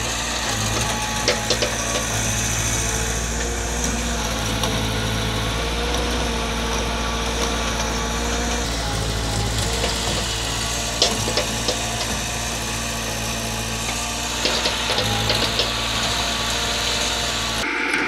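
Diesel engines of a small CAT excavator and farm tractors running steadily, with scattered sharp knocks and clatters. The engine sound changes abruptly near the end.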